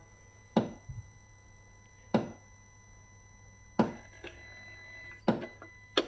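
Four sharp clicks with short ringing tails, evenly spaced about one every second and a half, over a faint steady hum.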